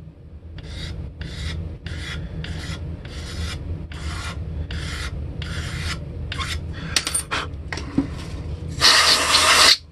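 A hand blade scraping along the painted edge of a guitar headstock, about a dozen short strokes at roughly one and a half a second, cleaning up the paint line. Near the end comes a louder burst of scraping noise lasting about a second.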